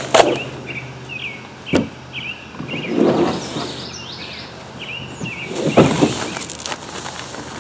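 A small bird chirps over and over in short, curving notes. A sharp knock comes about two seconds in, and two louder rustling, scuffing noises follow, around three and six seconds in, as the plastic pedal boat is handled on the grass.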